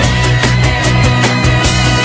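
Loud music with a steady driving beat and a heavy, held bass line.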